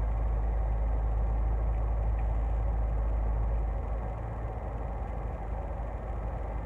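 Low, steady rumble of an idling vehicle engine, which eases a little under four seconds in.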